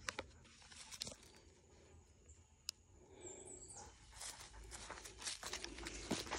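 Faint footsteps and rustling in grass and dry leaves as a person and a dog move about, quieter for a couple of seconds in the middle, with one sharp click.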